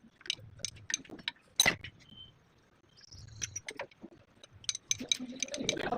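Metal parts and hand tools clicking and clinking at irregular intervals, with one sharp click a little under two seconds in.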